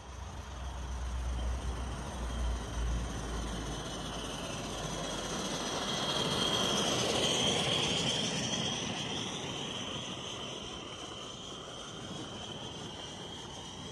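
A 45 mm gauge live-steam garden railway locomotive and its train of wagons running past on the track. The sound builds to its loudest about seven seconds in as the engine passes, then fades as the wagons roll by. A low rumble is heard in the first few seconds.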